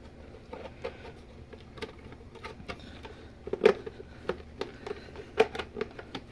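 Hands handling plastic Stormtrooper shin armour as its two halves are fitted around a leg: a run of light clicks and knocks of plastic on plastic, with two louder knocks about three and a half and five and a half seconds in.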